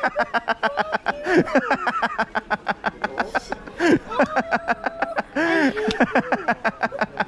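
Loud, prolonged laughter in rapid ha-ha pulses, mixed with a woman's high-pitched exclamations.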